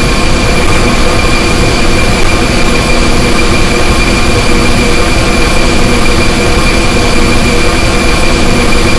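Sustained laser sound effect: a loud, harsh, unchanging drone with a high whine held at one pitch over dense noise.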